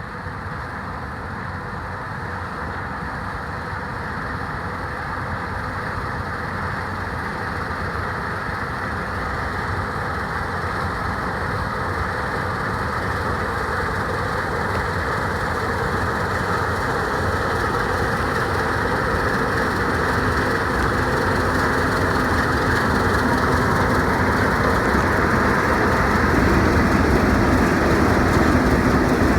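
Combine harvester running steadily at work, its engine and threshing machinery giving a continuous mechanical drone that grows gradually louder.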